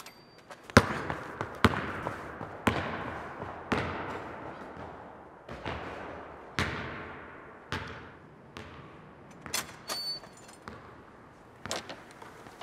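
A basketball bouncing on a hardwood gym floor in a slow dribble of about one bounce a second, each bounce echoing through the empty gym.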